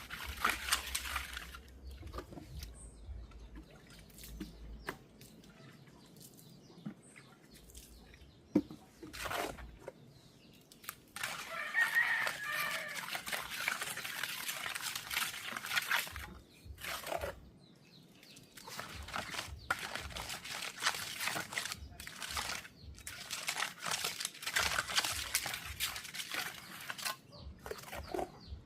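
A rooster crowing, among several long bursts of rustling noise and scattered knocks.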